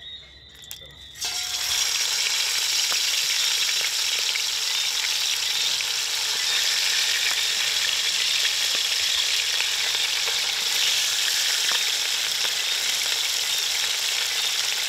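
Whole seasoned lionfish frying in very hot oil in a metal pan: a loud, steady sizzle that starts suddenly about a second in.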